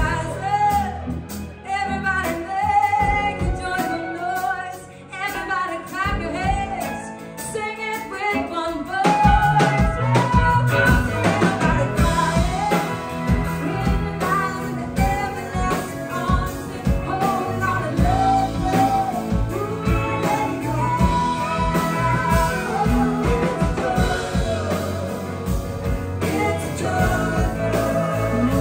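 Live band playing a song: a woman singing lead over acoustic and electric guitars, keyboard and drums. The band plays lighter for a few seconds near the start, then comes back in full from about nine seconds in.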